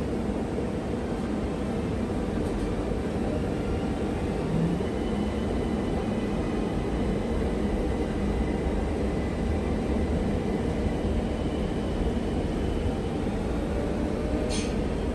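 ÖBB Cityjet electric commuter train running: a steady rolling rumble, with a faint whine that comes in a few seconds in and a few sharp clicks near the end.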